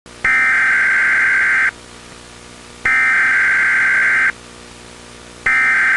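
Emergency Alert System header tones: three identical bursts of harsh electronic data screech, each about a second and a half long with short gaps between, the third still going near the end, over a steady hum and hiss.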